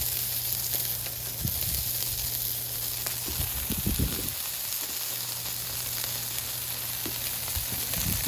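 Smashed burger patties and buttered bread sizzling steadily on a hot Blackstone flat-top griddle, with a low hum under it and a few soft knocks around four seconds in.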